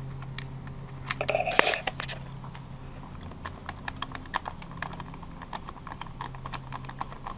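Ratcheting screwdriver clicking in quick runs as it drives screws through a plastic leaf-blower fan housing into the engine, with a louder clatter of the plastic housing being handled about a second in. A low steady hum sits underneath.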